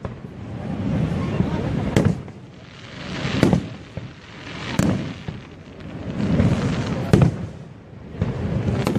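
Aerial fireworks bursting: about five sharp bangs a second or two apart, with a rolling low rumble swelling between them.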